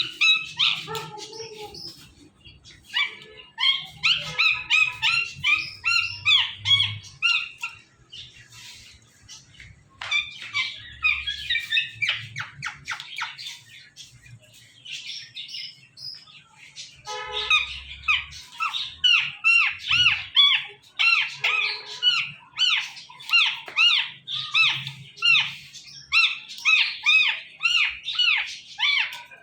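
Indian ringneck parakeet chattering in long runs of rapid, high-pitched chirps and squawks. There is a quieter gap of a few seconds in the middle, then a dense run to the end.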